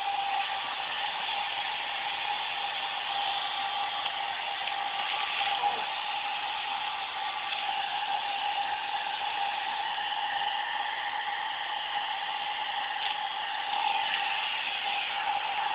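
Hair dryer running steadily: a constant whine over the rush of blown air.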